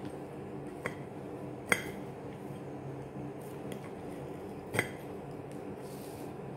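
Metal fork clinking against a plate three times, the sharpest about two seconds in, over a steady low hum.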